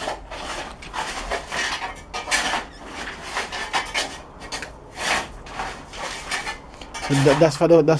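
Irregular scraping and rubbing on concrete block and loose rubble, several short scrapes a second. A man's voice comes in near the end.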